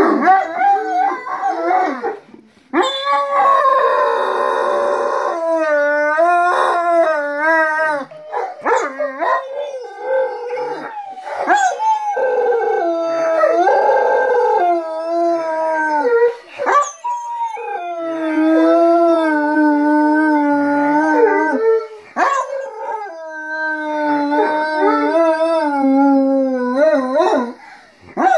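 Two Great Danes howling together in long, wavering howls, with short breaks to draw breath between them.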